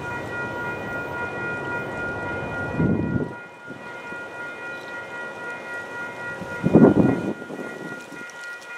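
Air horn of a Pan Am Railways GE B40-8 diesel locomotive held in one long steady chord over the low rumble of the train, with two short louder low rumbles about three and seven seconds in.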